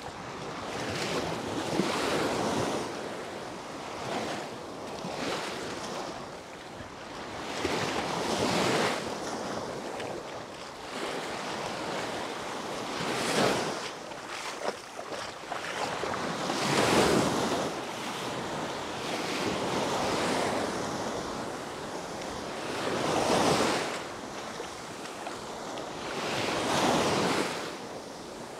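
Small Baltic Sea waves breaking and washing up a sandy shore, a surge of surf about every three to four seconds over a steady rush of water.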